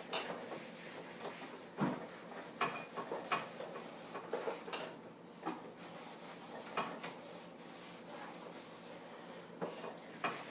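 Cloth wiping and scrubbing a surface during refrigerator cleaning, a steady rubbing noise broken by scattered light knocks and clicks.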